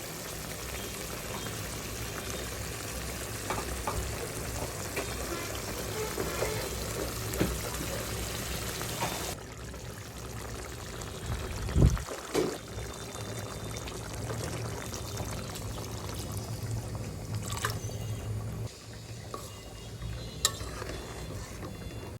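Pabda fish curry cooking in a pan: a steady sizzling hiss with stirring, the hiss dropping off suddenly about nine seconds in. A couple of loud knocks come near the middle, and a few light clicks follow.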